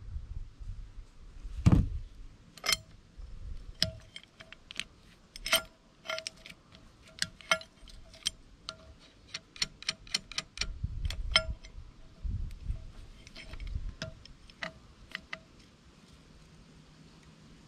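Metal clicks and clinks of a forked lever-type valve spring compressor being set against the valve spring retainers of a diesel cylinder head. Many of the taps ring briefly. There is a heavier dull knock near the start and a few low thuds toward the end.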